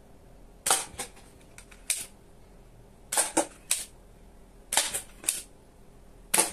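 ZP5 toy soft-bullet revolver firing four sharp snaps, one every second and a half or so, each followed by lighter clicks as the clear plastic cups are hit and tumble.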